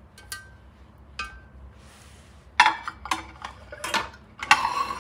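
Silicone spatula tapping and scraping against a stainless-steel food processor bowl: two light taps with a short ring in the first second or so, then a run of louder clattering knocks in the second half.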